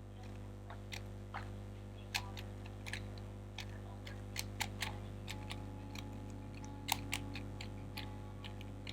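3x3 Rubik's cube being turned by hand through a scramble: single face turns clicking at an irregular pace, some in quick pairs, over a steady low hum.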